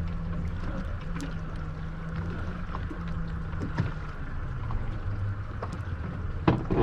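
Boat's engine running steadily with a low hum, with wind and water noise around the boat. There is a single sharp knock near the end.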